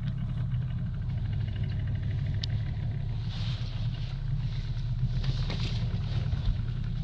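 A boat's outboard motor running steadily, a low even rumble, with faint hissing coming and going higher up.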